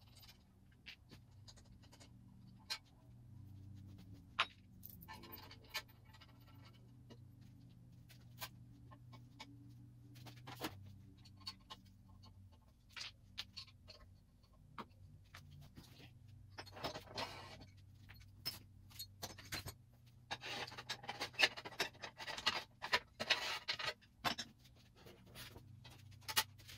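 Sparse clicks and knocks of hand tools and metal lathe parts being handled during bench assembly. Two busier stretches of rattling and clattering come in the second half.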